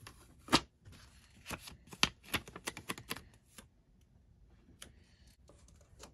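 Sheets of a paper sticky-note pad flicked with the fingers: a run of quick, irregular paper flicks and taps over the first three and a half seconds, the sharpest about half a second in, then fainter handling with a single tap near the end.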